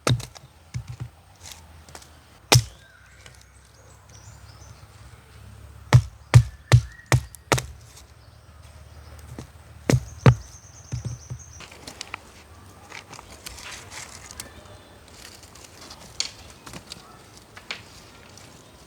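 Heavy, sharp knocks with a dull thud, coming in short clusters: a quick run of four or five about six seconds in, two more about ten seconds in, and a few single ones between, over quiet outdoor background.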